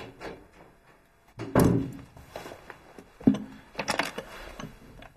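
A door shutting with a heavy thud, then a sharper thump and a few quick knocks and clicks near the end.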